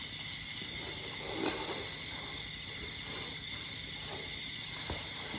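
Steady high-pitched chirring of night insects. A few brief soft noises stand out over it, the most noticeable about a second and a half in.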